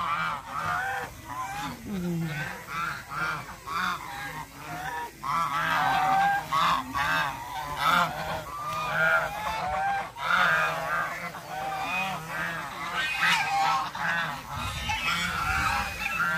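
A flock of domestic geese honking: many short honks overlapping and repeating in quick succession.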